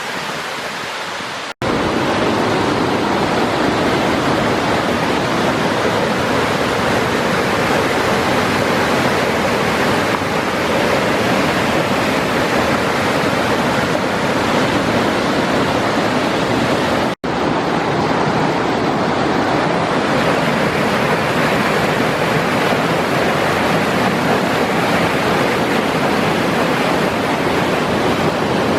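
A waterfall about 30 feet high, its falling water making a loud, steady rush. The sound cuts out for an instant twice, about a second and a half in and again near the middle, and is louder after the first cut.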